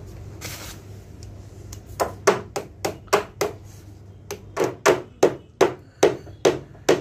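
Small nails being hammered into the corner of a WPC louvre wall panel: light hammer taps, about three a second, starting about two seconds in, with a short pause near the middle.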